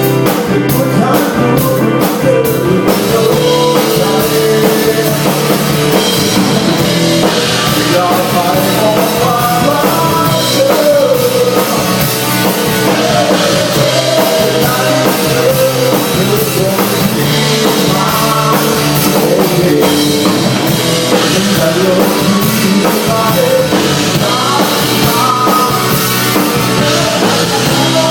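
Rock band playing a song live at a sound check: drum kit, instruments and a singer's voice carrying a wavering melody.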